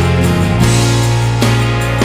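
Background music: a guitar-led rock track with bass and drums at a steady beat.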